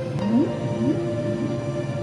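Slow ambient music of long held notes, with two short, low rising swoops in the first second.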